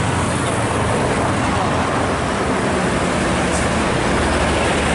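A bus driving past on the road: steady engine drone with tyre and road noise.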